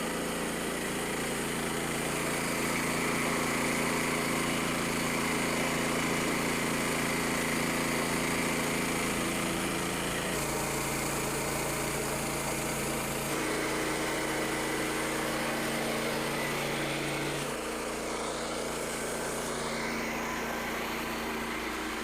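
The small gas engine of a Frontier OS27 portable band sawmill running steadily under power. Its pitch shifts a few times, about halfway through and again near the end.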